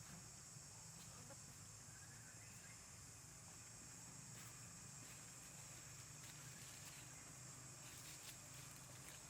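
Near silence: faint steady outdoor background with a high hiss and a low hum, and a few faint clicks.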